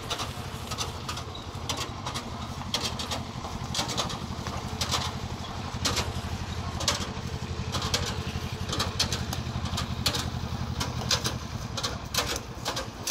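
Single-cylinder diesel engine of a công nông farm truck chugging steadily under load, its firing pulses evenly spaced, with sharp knocks and rattles at irregular intervals.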